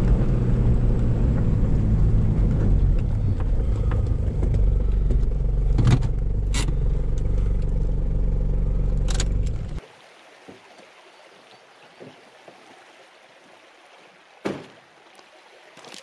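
Toyota Land Cruiser 4x4 engine running, heard from inside the cabin while driving slowly across gravel, with a few sharp knocks and rattles. The engine sound stops suddenly about ten seconds in, leaving quiet outdoor ambience with a single knock near the end.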